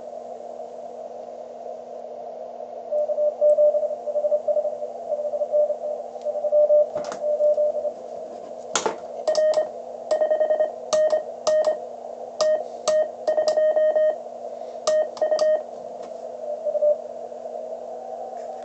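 Morse code (CW) from a Hendricks PFR-3 QRP transceiver: a single mid-pitched tone keyed on and off in dots and dashes over steady receiver hiss and a low hum. Some passages are fainter, and the louder keying in the middle carries sharp key clicks.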